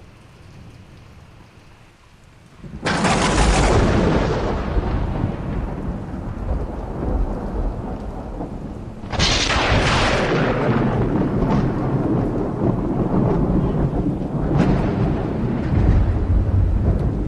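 Thunder: a sudden sharp clap about three seconds in that rolls into a long, deep rumble, then a second clap about halfway through that rumbles on with another swell near the end. Rain hisses faintly before the first clap.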